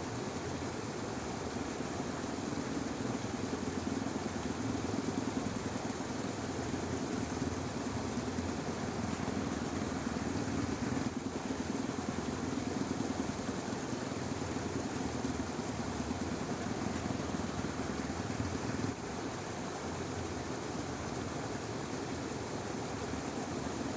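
A dense chorus of frogs in a rice paddy, croaking continuously and rapidly so that the calls blur into one steady pulsing drone.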